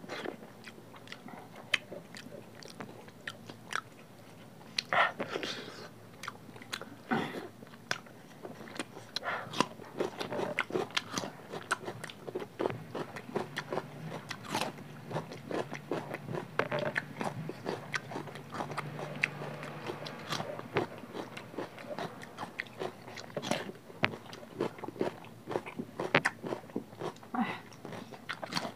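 Close-up mouth sounds of two people eating curry and rice by hand: wet chewing, lip smacks and irregular bites, with crunchy bites of raw cucumber near the end.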